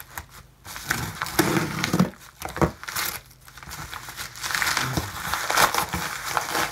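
Yellow padded paper mailer being slit with a folding knife blade and pulled open by hand: irregular paper rustling with a few sharp clicks. It goes quieter about three seconds in and picks up again, busier, in the second half.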